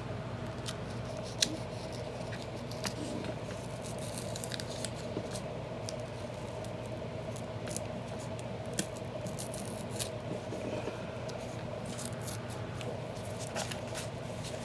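An old book's glued paper binding being cut through and pulled apart by hand: scattered small snips, crackles and scrapes of paper over a steady low hum.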